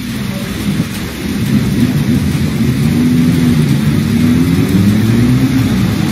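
Car engines running and revving as cars drive through floodwater on a road, over a steady hiss of rain and water. The engine note slowly rises and falls, growing louder about a second and a half in.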